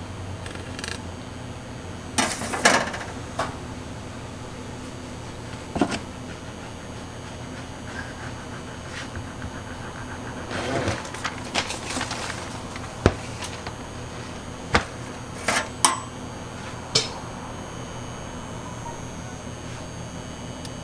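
Scattered sharp metal clinks and knocks as a steel ruler and a long serrated bread knife are handled and set down on a large sponge cake and the counter, over a steady low hum.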